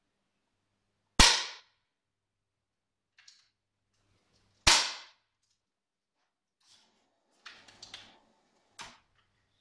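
Two match air rifle shots about three and a half seconds apart, each a sharp crack with a short ringing tail, followed near the end by a cluster of fainter clicks and a softer third crack.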